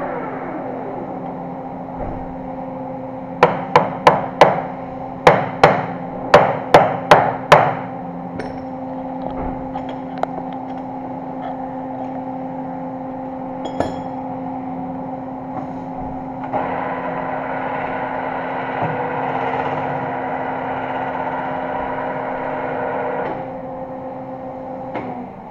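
Metal lathe running with a steady hum while a welded automatic-transmission torque converter shell is knocked apart: about eleven sharp, ringing hammer strikes on the steel shell in quick succession a few seconds in. The lathe's hum gets louder for several seconds later on and stops near the end.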